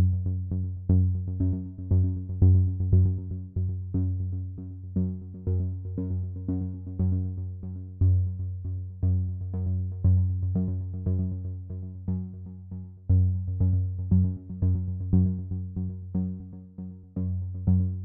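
Background electronic music: synthesizer notes plucked in a steady, even rhythm over a strong bass.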